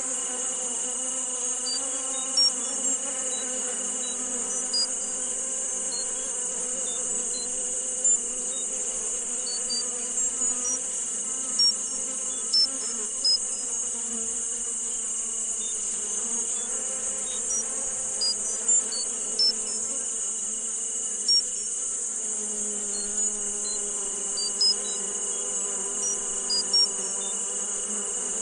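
Sound-therapy soundscape for tinnitus: a steady high-pitched, insect-like buzz and a thin steady high tone over a low sustained drone, with short high chirps dotted irregularly throughout.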